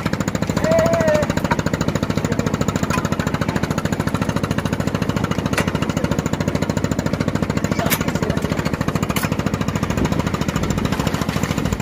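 A boat's engine running steadily with a fast, even knocking beat. A few faint clicks come through in the second half.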